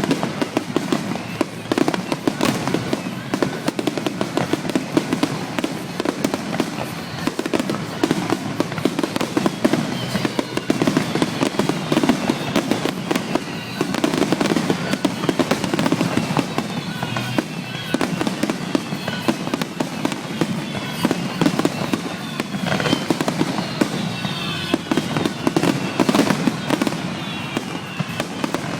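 Fireworks display: a dense, continuous run of shell bursts and crackling, with clusters of short whistles about a third of the way in and again near the end.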